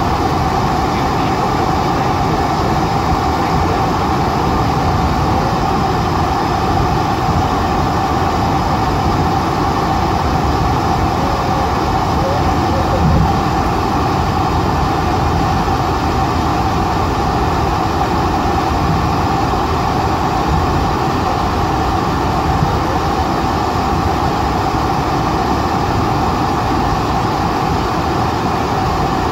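Cabin noise of a Boeing 747-400ER taxiing: a steady low rumble with a constant whine above it, and a brief bump about halfway through.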